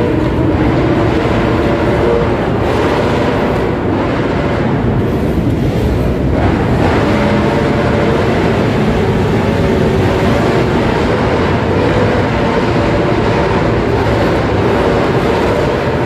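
Motorcycle engines of a large group ride running together inside a road tunnel: a steady, loud drone of engines and road noise that holds at an even level.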